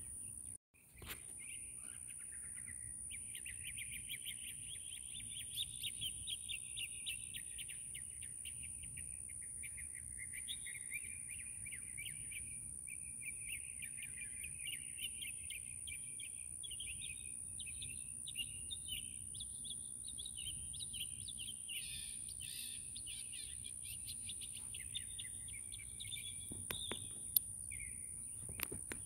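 Small birds chirping and twittering continuously as a dense chorus, over a steady high-pitched whine. The sound cuts out for a moment just under a second in.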